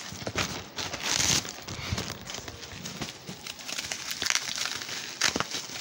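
Rustling and handling noise as things are moved about on bedding close to the microphone, with scattered clicks and knocks and a louder rustle about a second in.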